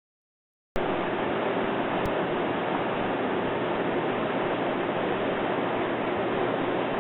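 Steady, even roar of a burner running, starting abruptly about three quarters of a second in after dead silence, with a small click about two seconds in.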